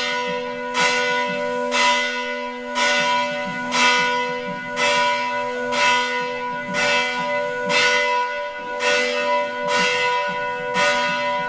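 Hindu temple bell rung over and over at about one stroke a second, each stroke ringing on into the next with several clear overtones.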